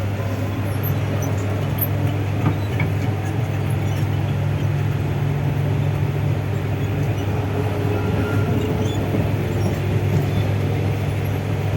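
Traction motors of a new Mumbai suburban local train (electric multiple unit) whirring as it accelerates, heard from onboard: a steady low hum with a faint higher whine.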